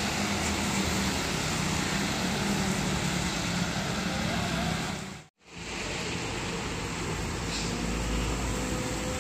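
Traffic on a rain-soaked road in steady rain: a bus engine running as it pulls away, with the hiss of rain and wet tyres. The sound drops out briefly about halfway, then rain hiss carries on with a low engine rumble building near the end as another vehicle approaches.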